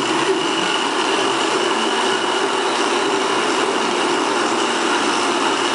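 Small electric motors of several junk-built robots running together, a steady whirring buzz with a thin high whine on top.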